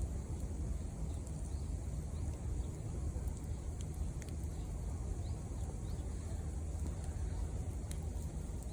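Wood fire burning with a few sharp crackling pops, over a steady low rumble; faint short bird chirps.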